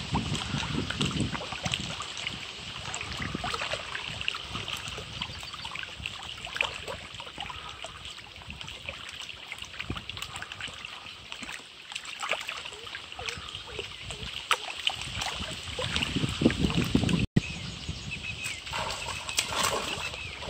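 Open-air ambience at the water's edge: wind gusting on the microphone over light water sounds and a steady high background chirring. Near the end a hooked fish splashes and thrashes at the surface.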